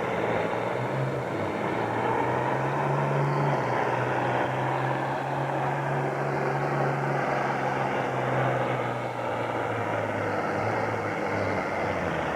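Diesel farm pulling tractor's engine running hard under full load during a pull, with a steady heavy drone whose pitch sags a little in the second half.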